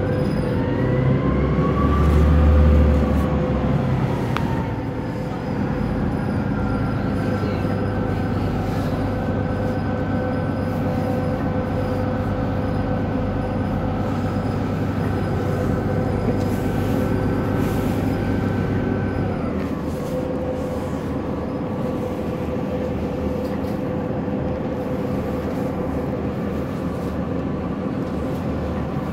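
A train running, heard from inside the passenger carriage: a steady rumble with a motor whine. The whine glides up and down in the first few seconds, then holds, and falls away with the low hum about twenty seconds in.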